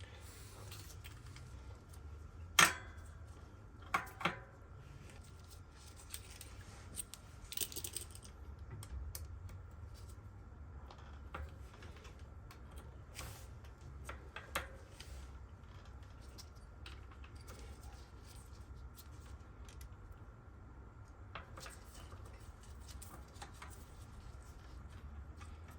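Scattered small metallic clicks and taps of tools and parts at a Shimano Saint disc brake caliper while the worn brake pads are worked loose, the sharpest click a few seconds in.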